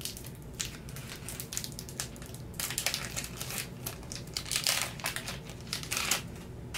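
Foil wrapper of a Pokémon TCG booster pack crinkling in irregular crackles as it is handled and opened.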